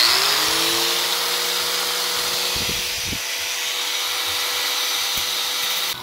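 Electric angle grinder with a cutting disc switched on: its whine rises quickly to a steady high pitch and runs evenly, then is switched off just before the end.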